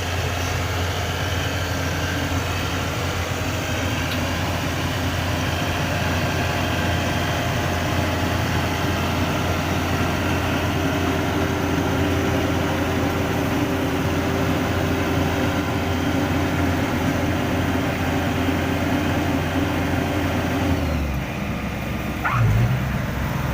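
Yanmar YH850 combine harvester's diesel engine running steadily, with its note dropping lower near the end.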